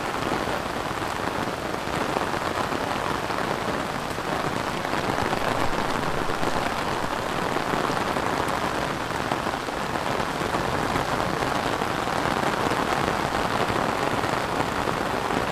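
Steady rain falling on rice paddies and leafy plants, an even, unbroken hiss.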